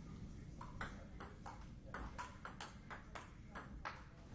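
Table tennis rally: the ball clicks quickly back and forth off the table and the rubber-faced bats, starting about half a second in and going at three to four hits a second.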